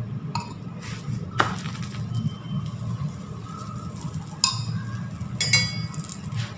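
Paratha frying in oil on a hot iron tawa, with several sharp metallic clinks of kitchen utensils over a steady low hum.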